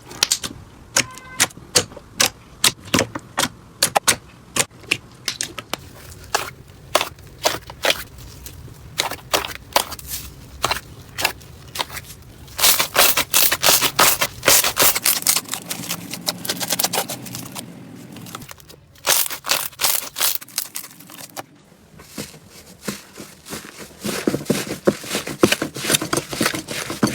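Slime being squeezed and pressed by hand: a long run of sharp, irregular pops and crackles, some stretches thick with rapid clicks and others sparser.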